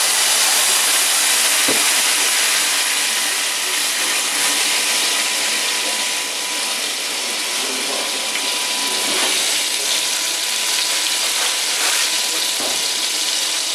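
Vermouth poured into a hot stainless pan of fennel in browned butter, hissing and sizzling as it boils off in steam while the pan is deglazed. The hiss is strongest at first and settles into a steady sizzle after a few seconds.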